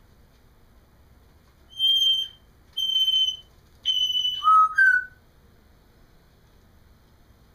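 African grey parrot whistling: three high, level whistles about a second apart, then two quick lower notes, the second a little higher than the first.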